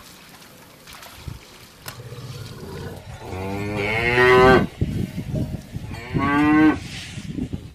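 Cow mooing twice: a long moo that swells over about two seconds, then a shorter moo near the end.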